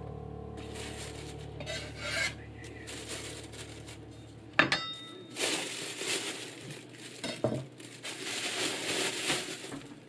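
A chef's knife handling chopped almonds on a wooden cutting board, with a sharp knock about halfway through as the knife meets the board. Then a plastic bag rustles for several seconds as the chopped nuts are tipped into it with rolled oats.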